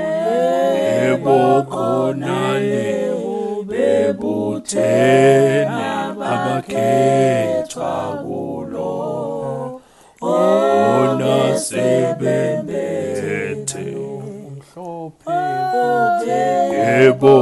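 A cappella male voices singing an isiZulu ubuZion (Zionist church) hymn in several-part harmony. It is one man's voice multitracked, with a low bass line under the higher parts. The singing stops briefly about ten seconds in, then all the parts come back in together.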